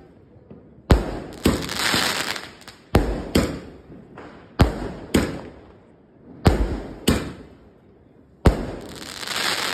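Moorthy Antiquity 100-shot firework cake firing, its shots bursting overhead as sharp bangs. There are about nine bangs, mostly in pairs about every one and a half seconds, and some are followed by a spread of crackling.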